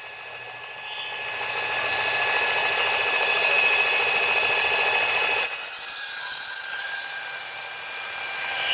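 Work Sharp belt knife sharpener running at slow speed, its small motor giving a steady whine that grows louder over the first couple of seconds, with a stainless steel knife blade being ground on the coarse 120-grit belt. A loud, hissy grinding burst sets in about five and a half seconds in and lasts nearly two seconds, as the blade edge is pulled across the belt.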